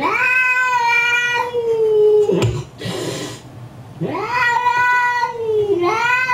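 Cat yowling: two long, drawn-out calls, each dipping in pitch as it ends, the second running straight into a short rising call near the end.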